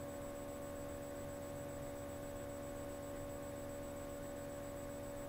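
Steady electrical hum with a few constant tones over faint hiss: quiet room tone of a sound system, with nothing else happening.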